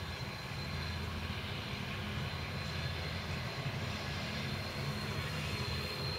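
Diesel-electric locomotives of a loaded coal train working hard under heavy load, a steady low engine drone.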